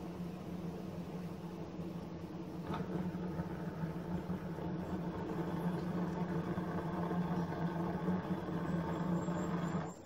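Propane burner firing into a small coffee can furnace: a steady roar with a low hum, slowly growing louder. A faint click comes about three seconds in.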